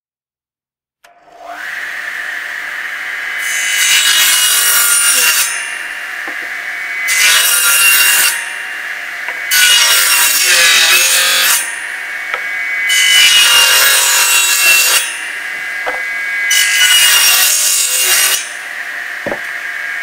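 Table saw started about a second in, its blade spinning with a steady whine, then cutting short wooden boards five times. Each cut is louder and rougher and lasts one to two seconds, with the blade spinning freely in between.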